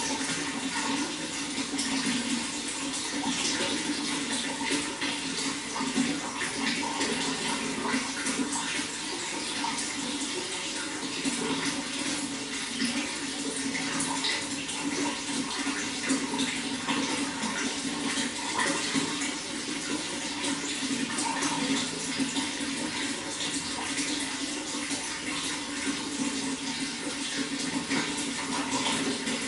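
Running water flowing steadily and without a break, a continuous splashing rush.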